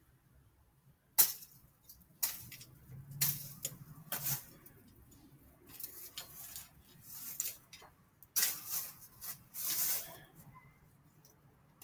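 Irregular clatter and scraping of hand tools and bike parts being handled and fitted, in short separate bursts.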